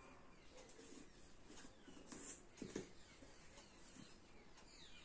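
Faint stirring of a thick cornstarch-and-shampoo mixture with a plastic spatula in a small bowl: soft scattered scrapes and clicks, a couple slightly louder about two and a half seconds in.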